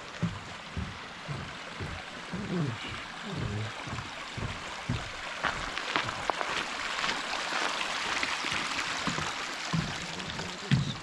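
Running water from a small stream, a steady rushing hiss that swells through the middle, with irregular footsteps on the trail.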